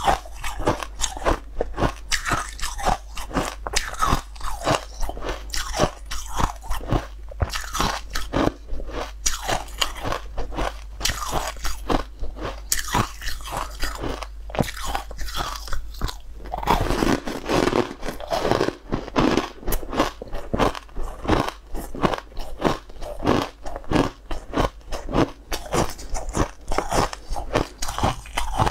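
Rapid, continual crunching and chewing of frozen sweet ice balls coated in green powder, bitten and chewed close to a clip-on microphone.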